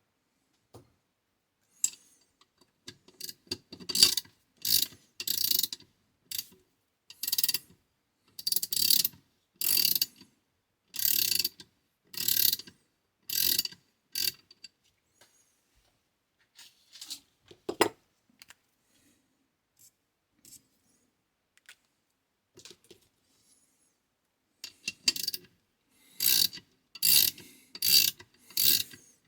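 Ratchet wrench clicking in short bursts, each burst one swing of the handle with its pawl ratcheting over the gear. The bursts come in two runs with a single sharp click between them.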